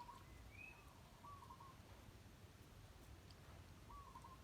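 Near silence with a few faint, short bird chirps in the background, one of them rising in pitch about half a second in.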